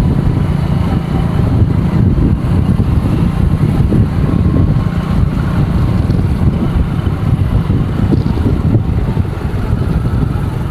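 Motor vehicle engine running steadily while on the move, a continuous low rumble, with wind buffeting the microphone.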